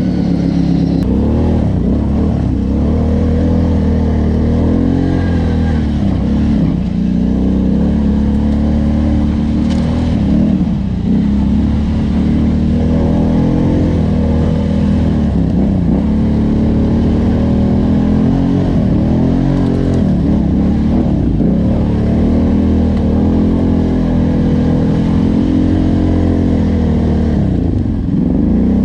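Off-road vehicle engine running under load with constant throttle changes, its pitch rising and falling every second or two as it revs.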